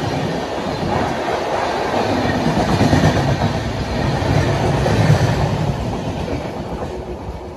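Fast passenger train passing close by: loud, steady wheel-and-rail noise of the coaches going past, dropping off about seven seconds in as the last coach goes by.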